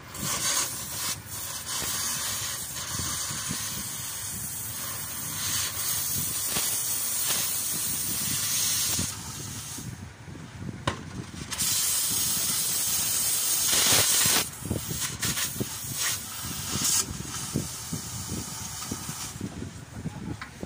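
Oxy-fuel gas torch hissing as its flame works on rusted steel, in long stretches. It drops off for a couple of seconds about nine seconds in, comes back loudest, then goes on softer after about fourteen seconds.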